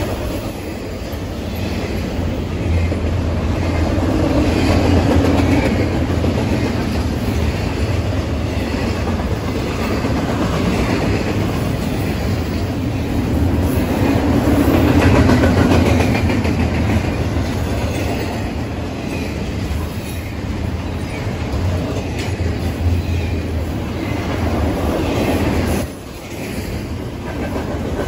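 Union Pacific double-stack intermodal freight train's well cars rolling past on the main line: a continuous low rumble of wheels on rail that swells and eases, with a brief dip in level near the end.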